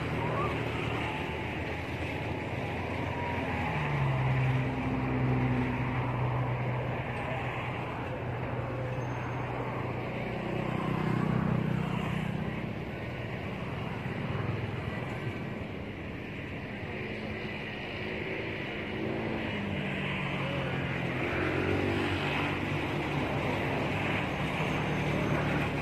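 Low drone of motor vehicle engines, swelling and fading and shifting in pitch every few seconds, over a steady hiss.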